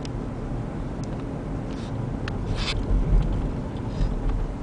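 Steady low road and engine rumble heard inside a moving car's cabin, with a few light clicks here and there.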